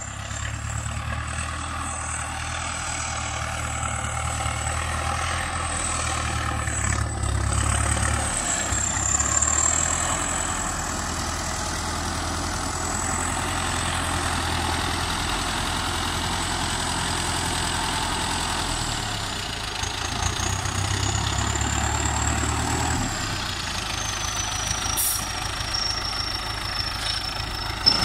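MTZ-820 turbo tractor's turbocharged diesel engine running steadily, growing louder over the first several seconds as it comes closer. A thin high whine sounds throughout and shifts slowly in pitch.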